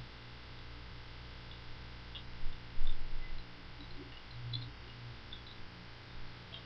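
Small scattered clicks of a computer mouse being handled, over a steady electrical hum, with a couple of louder dull knocks about two and a half seconds in.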